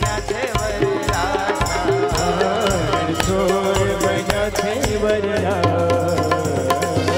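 Instrumental music of a Gujarati wedding song: hand drums keep a steady, even beat under a wavering melody line.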